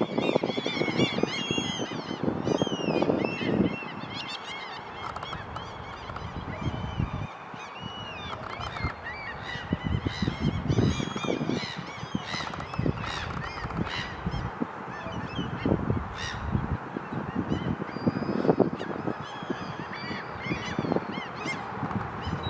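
Birds calling: repeated low honking calls, loudest in the first few seconds, about ten seconds in and near the end, over many short high chirps and whistles from other birds.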